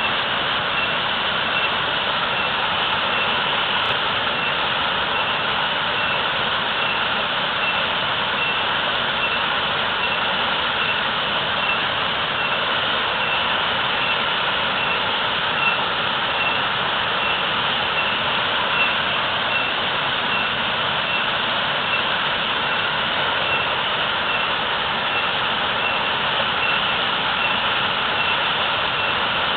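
Natural waterfall pouring heavily: a steady, unbroken rush of falling water.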